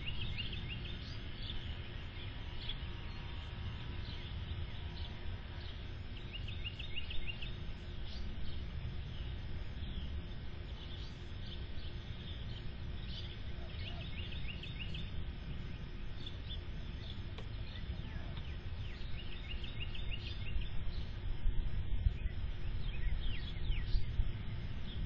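Outdoor ambience: a bird chirping in short runs of rapid high notes every second or two, over a steady low rumble.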